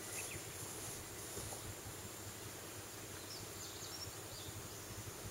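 Quiet outdoor ambience: a steady hiss with a few faint bird chirps about three to four seconds in.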